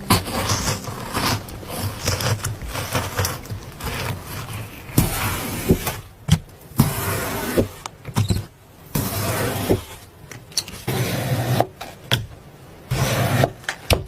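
Hands squishing, pressing and stretching soft slime: irregular squelching bursts with sharp little pops and clicks between them.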